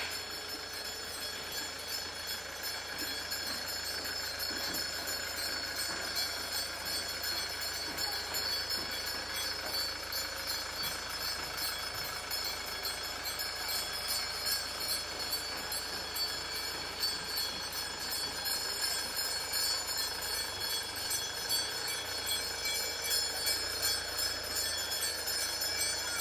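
A street procession passing: a continuous din of many people walking, with a steady jingling ring of small bells over it.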